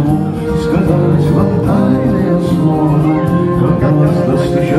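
Live acoustic band music: acoustic guitar strumming with a violin playing over it, in an instrumental passage without vocals.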